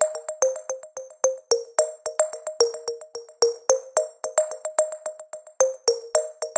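Electronic background music: a fast, even run of short staccato synth notes with bright, high bell-like pings over them.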